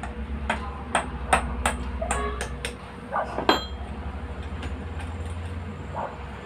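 A hammer knocks on a metal radiator fan clutch that is being taken apart, about nine sharp metallic blows in the first three and a half seconds. After that come only a few faint knocks over a steady low hum.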